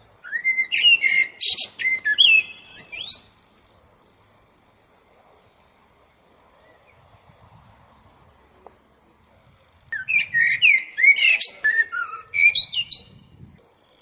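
Eurasian blackbird singing two song phrases about ten seconds apart, each a run of fluted, gliding notes mixed with higher squeaky twitters.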